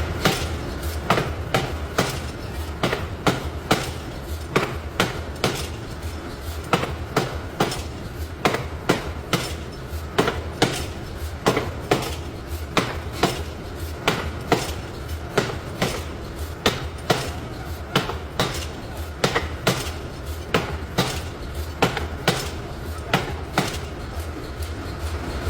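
Forging hammer blows on metal, repeated steadily at roughly two to three strikes a second over a steady low hum.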